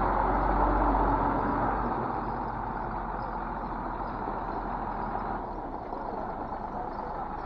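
Heavy dump truck's diesel engine running as the loaded truck creeps forward at low speed. A loud, deep rumble for the first couple of seconds settles into steadier, quieter running.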